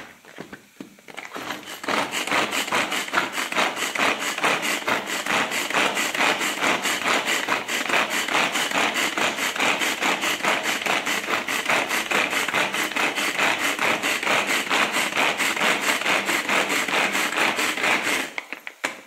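Manual pull-cord vegetable chopper chopping tomato: the string is pulled again and again, spinning the blades inside the plastic bowl in a fast, even rattle that starts about a second in and stops just before the end.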